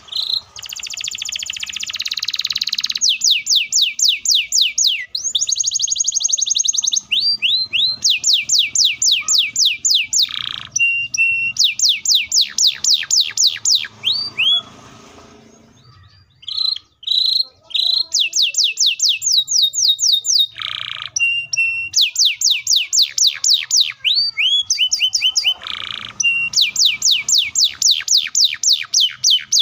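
Domestic canary singing in full song: long, fast rolls of rapidly repeated sweeping notes, opening with a dense buzzy trill, broken by short pauses and a brief lull about halfway through.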